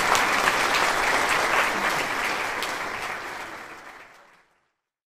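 Crowd applauding, a dense patter of many hands clapping, fading out over the last couple of seconds into silence.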